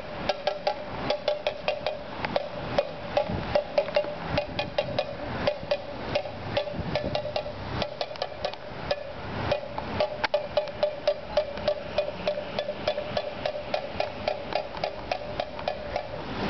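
Something is being struck over and over at a protest to make noise, several strikes a second in an uneven rhythm. Each strike has a short ring at one pitch, like a hand-held percussion noisemaker.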